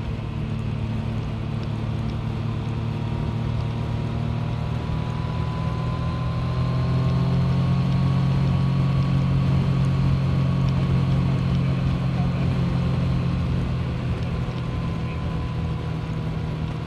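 Yamaha MT-09's three-cylinder engine running steadily under way, with wind and road noise. About halfway through it gets louder and its pitch rises a little, then it eases off again near the end.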